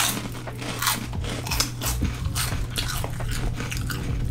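Cheetos corn snacks being bitten and chewed close to the microphone: a rapid series of crisp crunches.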